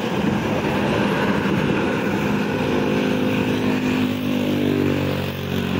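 Highway traffic passing close by, with a coach's engine and tyres going past. A steady engine drone comes in about two and a half seconds in.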